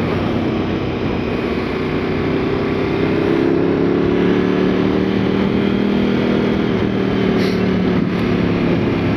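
KTM 1290 Super Adventure S V-twin engine running under light throttle at low road speed, its note rising a little about three seconds in and then holding, over steady wind and road rush.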